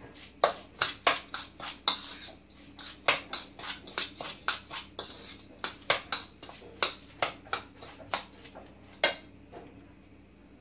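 A spoon scraping and clinking against a mixing bowl as crushed Oreo biscuit crumbs are stirred with melted butter, in quick irregular strokes that stop about nine seconds in.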